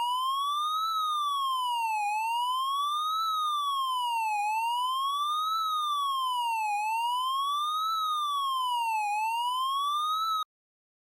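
Tornado warning siren wailing, its pitch sweeping steadily up and down about once every two and a half seconds, then cutting off abruptly near the end.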